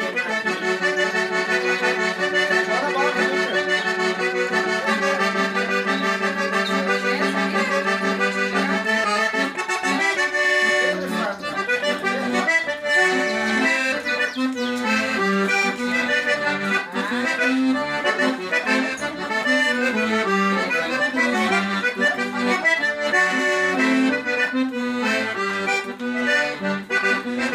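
Accordion playing a traditional tune: held chords over a steady bass note at first, then about ten seconds in a quicker, bouncing bass line of changing notes under the melody.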